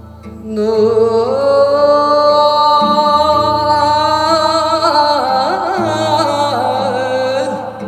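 Music: a singer in Korean traditional folk-song style holds one long note that slides up at its start, then breaks into wavering, sliding ornaments over a low sustained drone.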